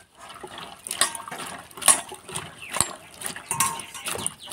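Hand swishing cut green beans and potato strips in water in a stainless steel bowl, splashing and sloshing with irregular clinks against the metal, loudest about two seconds in.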